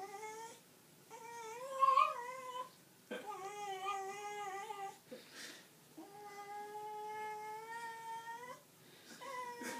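Cocker spaniel whining and moaning in displeasure while being rubbed dry with a towel: a string of about five long, drawn-out whines, the longest, about two and a half seconds, past the middle.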